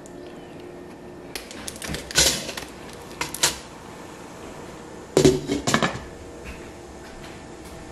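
Kitchen handling clatter: a few sharp knocks and clinks a couple of seconds in, then a louder cluster of clattering about five seconds in as a glass lid is set onto a stainless steel steamer pot, over a faint steady hum.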